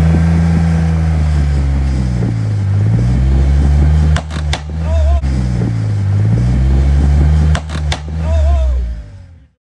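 Lifted Jeep Wrangler's engine revving up and dropping back in slow swells as it crawls over rocks, with a few sharp knocks about four seconds in and again near the end. The sound cuts off suddenly just before the end.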